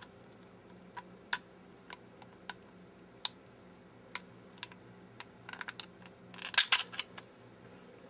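Plastic clicks and taps from a 3D-printed scale model of a push-lock quick-connect fitting being handled with its release tool. A few scattered clicks are followed, near the end, by a quick cluster of louder clicks as the tube is pulled free of the spring clips.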